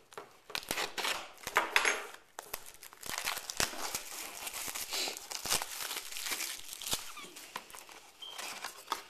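Plastic wrapping on a trading-card box crinkling and tearing as it is unwrapped: a few sharp clicks and rustles at first, then steady crinkling from about two and a half seconds in.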